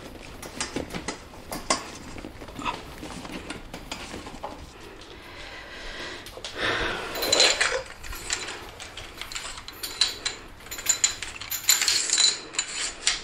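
Aluminium frame tubes of a folding kayak knocking and clinking together as they are handled, with a longer scraping rustle about seven seconds in and a quick run of metallic clicks near the end.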